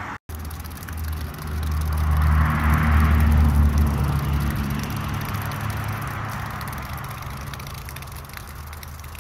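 Water spraying from an upright drainfield pipe under pump pressure during a pressure test of the drainfield lines: a hiss of spray over a low rumble, both swelling about two to four seconds in after a brief dropout at the start.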